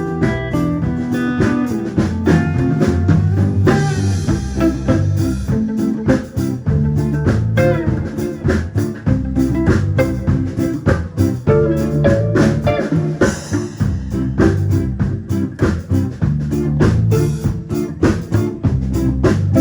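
Band playing an instrumental stretch of a blues-style song: guitar over bass and a drum kit keeping a steady beat.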